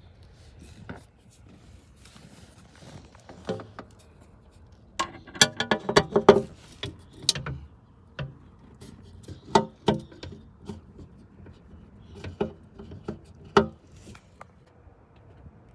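Irregular clicks and knocks of hand tools and small metal parts being handled, with a quick burst of rattling clicks about five seconds in and single sharp knocks after it.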